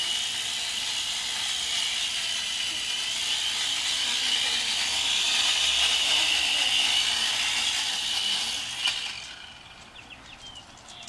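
Syma X1 toy quadcopter's four small motors and propellers whining in flight, the pitch wavering up and down. About nine seconds in there is a short knock and the motor whine stops.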